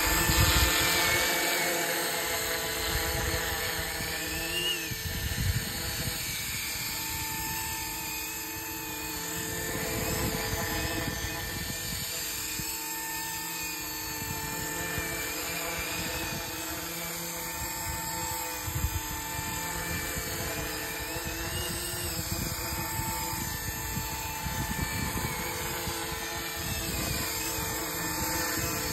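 Flish RC EC135 450-size electric RC helicopter flying low: a steady, high whine from its brushless motor and spinning rotors, the pitch wavering slightly as it manoeuvres.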